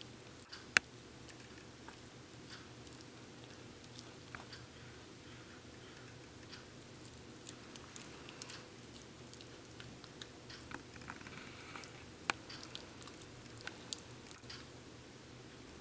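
Bichon frise puppy chewing and biting a plush toy: faint, irregular small clicks and soft gnawing, with a sharp click about a second in and another near twelve seconds.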